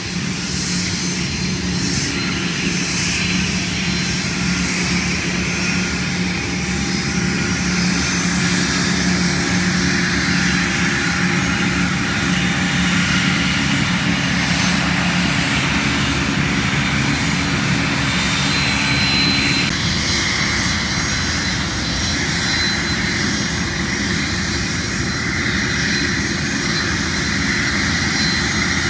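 Aircraft engines running steadily as a business jet and a twin turboprop land and taxi, a continuous engine hum and rush. The sound changes abruptly about twenty seconds in.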